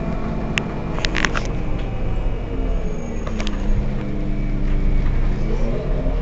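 Heuliez Access'Bus GX 127 city bus's diesel engine running at a stop: the revs settle and hold steady, then start to climb near the end. A few sharp clicks come about a second in and again around the middle.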